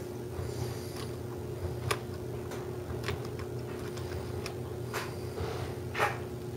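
A few faint, irregular clicks as an HO scale reefer car is handled and rolled along the model track by hand, over a steady low hum.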